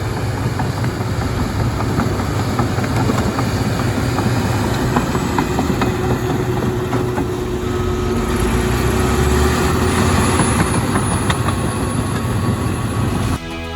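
Diesel engine of a tracked earthmoving machine running under load, with many small clanks from its steel tracks; it cuts off abruptly near the end.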